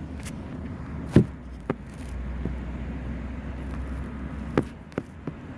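Heat pump air handler running with a steady low hum, with several sharp clicks and knocks of things being handled over it, the loudest about a second in.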